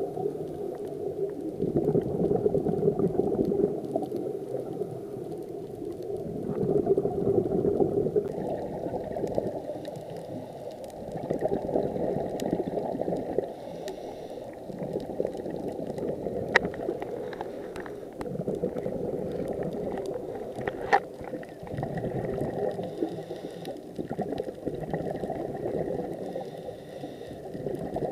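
A diver's breathing heard underwater: exhaled bubbles gurgling and bubbling, swelling and fading every few seconds, with two sharp clicks in the second half.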